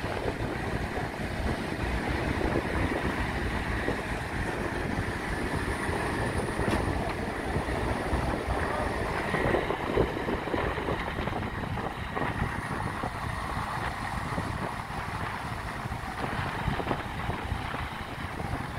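Nissan Navara ute's engine running under load as it tows a bogged ute through soft sand, with wind rumbling on the microphone.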